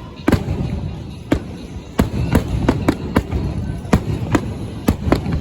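Aerial fireworks going off in quick, irregular succession: about ten sharp bangs over a low, continuous rumble of shells bursting.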